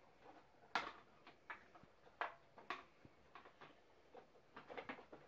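Plastic parts of a Ben 10 Rustbucket toy playset clicking and knocking as they are handled and pushed into place: a scatter of faint, irregular clicks, with one sharper knock about three-quarters of a second in.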